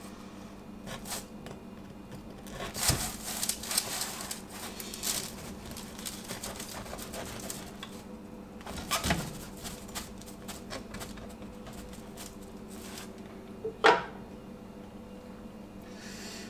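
Scattered clinks, scrapes and rustles of camp cookware being handled, with one sharper knock about fourteen seconds in.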